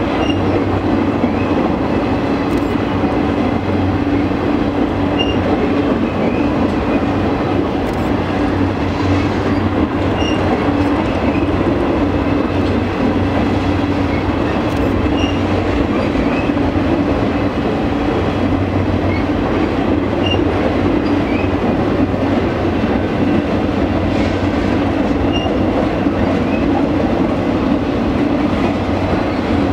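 Flatcars of a slow-moving circus train rolling past. The wheels give a steady rumble on the rails.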